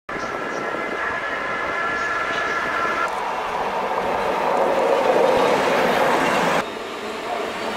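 Freight trains hauled by electric locomotives passing, in short clips cut together. For the first three seconds a steady high whine sits over the running noise. Then the louder rumble of a locomotive and flat wagons passing close takes over, and it cuts off suddenly near the end.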